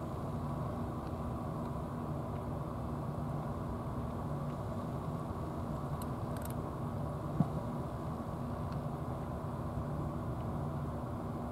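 Steady low outdoor rumble with a faint hum in it, of the kind distant traffic or an engine makes. One short knock stands out about seven seconds in, with a few faint ticks just before it.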